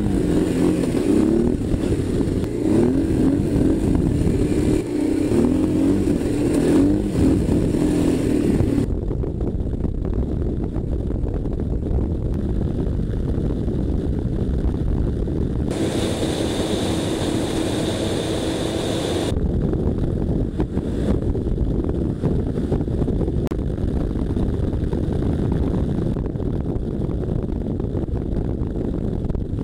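Honda V-twin dual-sport motorcycle being ridden on gravel roads, the engine pulling with revs rising and falling for the first several seconds, then running steadily with wind and tyre noise. The sound changes abruptly a few times as clips are cut together.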